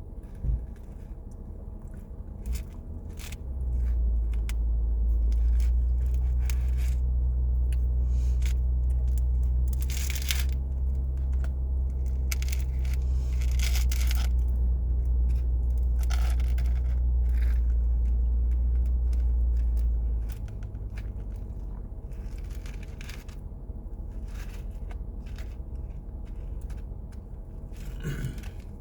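Close-up eating sounds: chewing with scattered crunches and tearing noises from a pumpkin spice cinnamon roll. Under them a steady low rumble starts about four seconds in and cuts off abruptly about twenty seconds in.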